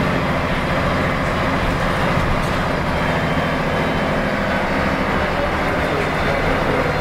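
A Volvo B10M Mk 2 city bus on the move, heard from inside its cabin. Its mid-mounted 9.6-litre six-cylinder turbo diesel runs with a steady drone, mixed with road noise.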